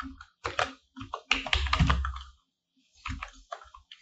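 Typing on a computer keyboard: a quick run of key clicks, a pause of about half a second, then a few more keystrokes.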